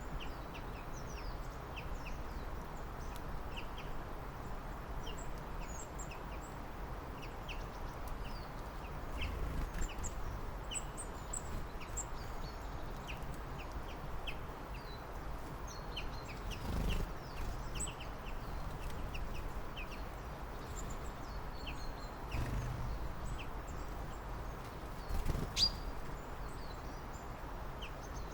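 Small birds calling with many short, scattered high chirps over a steady outdoor hiss. A few brief low thumps or deeper sounds come through, the loudest near the end.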